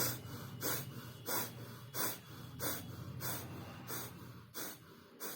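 Rapid, forceful in-and-out nasal breathing through one nostril with the other held shut: bhastrika (bellows breath) pranayama. The breath strokes come evenly, about three every two seconds.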